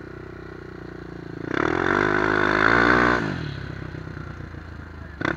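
Single-cylinder four-stroke engine of a 2003 Honda 400EX ATV with a White Bros exhaust, running along a dirt trail. About a second and a half in it revs up loudly for under two seconds, then drops back to a steady run as the throttle is eased off. A short sharp noise comes near the end.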